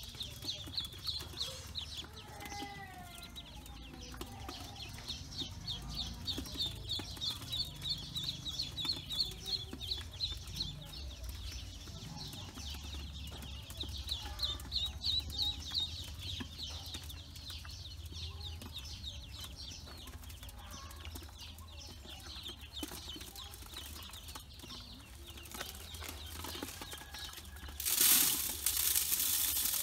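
A group of ducklings peeping in rapid, high-pitched strings, with pauses between runs. Near the end a loud noisy burst lasting about two seconds is the loudest sound.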